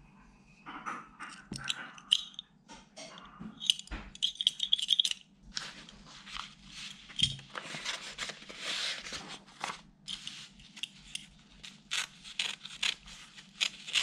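A freshly restored century-old craft knife slicing through a sheet of paper in quick cuts, with the paper crinkling and rustling as it is handled, to test the blade's sharpness. Scattered clicks and taps come first, and the slicing and rustling become dense from about halfway.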